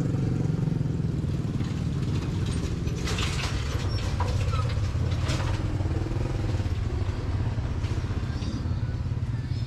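Motorcycle engine running steadily with a low hum, and a few short clatters about three to five seconds in.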